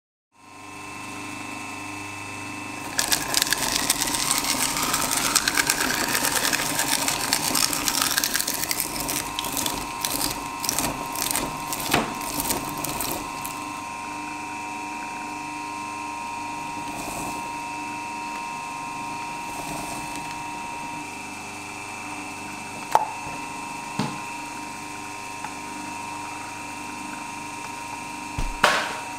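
Industrial twin-shaft shredder motor running with a steady hum. From about three seconds in, for some ten seconds, there is dense cracking and crunching as something is torn apart between the blades. After that the shredder runs unloaded, with a couple of sharp knocks and a final knock near the end as a ball drops onto the blades.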